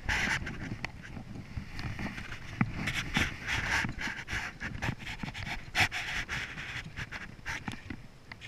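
Heavy, rapid breathing close to the microphone, in repeated noisy breaths about one or two a second, with scattered small clicks and knocks.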